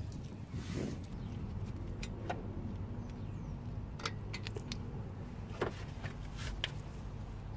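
Light metallic clicks and taps as a wire anti-rattle spring clip is worked onto a brake caliper, most of them in the second half, over a steady low hum.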